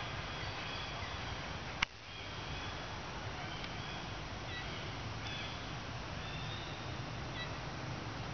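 Steady outdoor background rumble with faint, short, high chirping calls every second or so, and one sharp click about two seconds in.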